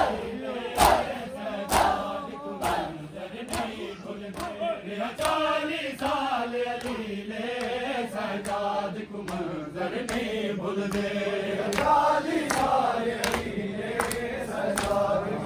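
A group of men chanting a noha lament together, with sharp hand slaps of matam (chest-beating) landing in time about once a second.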